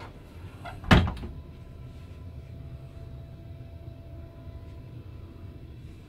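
A wooden cabin cupboard door pushed shut with one sharp, loud knock about a second in, followed by a steady low hum.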